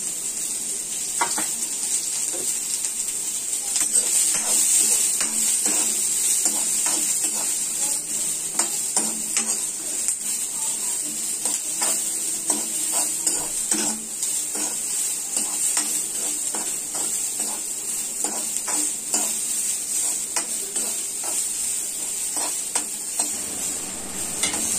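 Sliced onions sizzling steadily in hot oil in a kadhai, being fried until they turn reddish-brown. A steel spoon stirs them, scraping and clinking against the pan many times.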